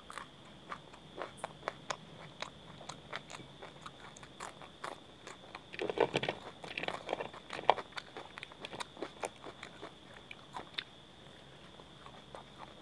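Close-miked crunchy chewing and biting of a raw green chilli and fried piyaju fritters, a steady run of short crisp crunches with a denser, louder cluster about six seconds in.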